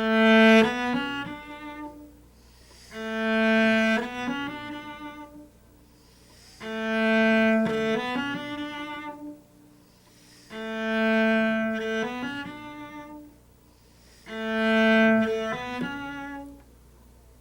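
A solo cello playing a bowing exercise five times over, with short pauses between: each phrase is a long, loud note followed by a few shorter, softer notes. It demonstrates a bowing pattern where the bow pressure is lightened on the subordinate notes of the phrase.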